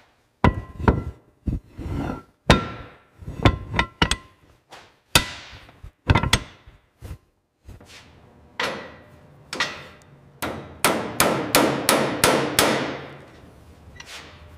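Hammer blows on metal: a long series of sharp, irregular strikes, each with a brief ring. They pause briefly about halfway through, then come back as a quicker run of blows.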